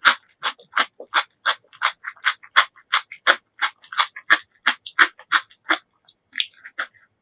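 Close-miked chewing of food, a steady rhythm of about three wet, crunchy chews a second, slowing to a few scattered chews near the end.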